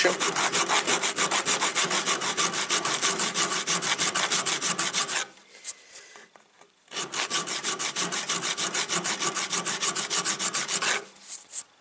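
Hand file rasping back and forth in quick, even strokes, several a second: decorative filework (guillochage) being cut into a knife's spine. The filing stops for a moment about five seconds in and again near the end.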